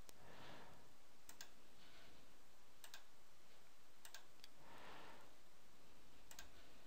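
Computer mouse clicking: a handful of faint, sharp clicks spaced a second or more apart, some in quick press-and-release pairs, over faint steady hiss.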